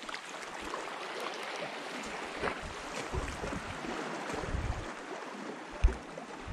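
Surf washing on the shore, heard as an even hiss with wind on the microphone. A single low bump on the microphone comes near the end.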